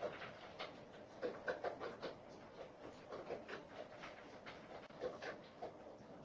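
Dog eating, with irregular short chewing sounds a few times a second.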